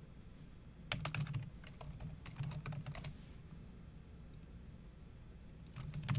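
Typing on a computer keyboard: a few short bursts of quick keystrokes, with pauses between them.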